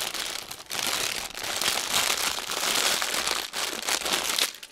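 A clear plastic bag stuffed with small packets of diamond painting drills crinkling and rustling as it is handled and lifted away. The crinkling stops near the end.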